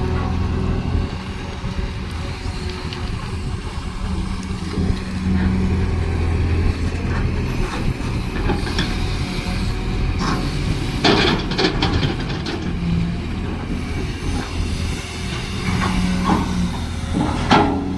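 Cat excavator's diesel engine running, its pitch and load swelling and easing as it works, with a few sharp metallic clanks, the loudest about eleven seconds in and near the end.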